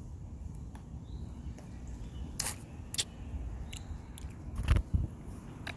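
Close handling and eating noises at the microphone: a few sharp clicks and crackles, three of them louder, over a low rumble.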